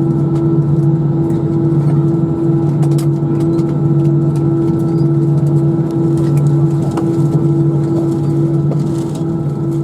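Airbus A319 cabin noise while taxiing: the engines run at idle with a steady hum and a whine of several steady tones over a background rush.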